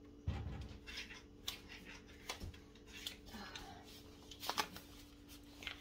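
Faint handling noises: a soft bump, then light rustling and clicks as a plastic sweetener pouch is taken down and handled, over a steady low hum.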